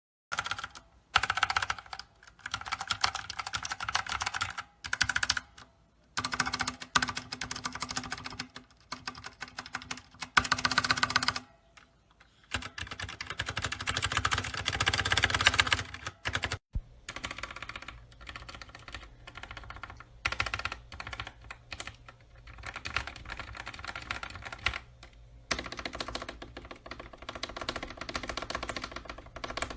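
Mechanical keyboard being typed on fast, in runs of rapid keystroke clatter broken by short pauses, the longest about a third of the way in and again midway.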